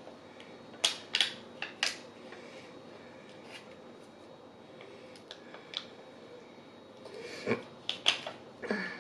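Fork clicking and scraping against a mini pie's crust and its foil tin as the pastry is cut. The clicks are sharp and come in short runs, a handful about a second in and another cluster near the end.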